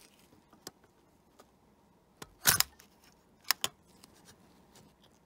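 Mechanical clicks and snaps from a Rolleiflex 2.8F's waist-level finder hood being worked: a few light ticks, a loud cluster of clicks about halfway through, then two sharp clicks close together as the flip-up magnifier lens comes into place.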